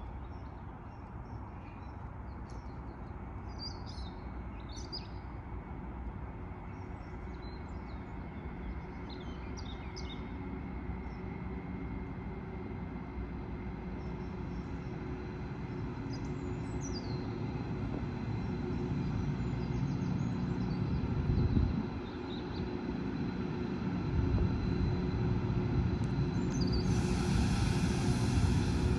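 Diesel freight locomotive approaching, its low engine rumble and hum building steadily, with a sudden hiss near the end. Birds chirp during the first third.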